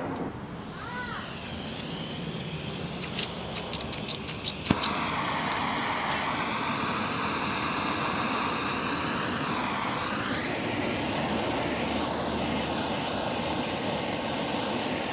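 A quick run of clicks, then about five seconds in a hand-held gas blowtorch lights and burns with a steady jet-like rushing, its flame played on a control-arm bushing sleeve to heat and melt the rubber bushing.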